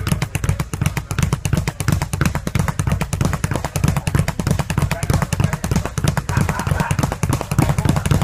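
A speed bag being punched in a fast, steady rhythm: a rapid, even run of thumps, several a second, as the bag rebounds off its platform.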